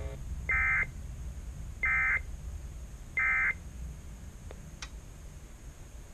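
Three short buzzy bursts of NOAA Weather Radio SAME digital data, each about a third of a second long and about 1.3 s apart: the end-of-message code that closes the weekly test broadcast. A low steady hum runs underneath, and two faint clicks follow.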